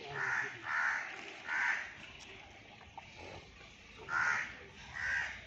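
A crow cawing five times: three caws in the first two seconds, then two more near the end.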